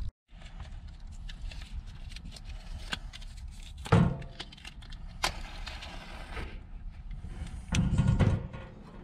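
Clicks, knocks and clatter of hands working around a propane camp stove and its metal grates, with a loud knock about four seconds in. Near the end a match is struck to light the burner: a louder noisy burst lasting about half a second.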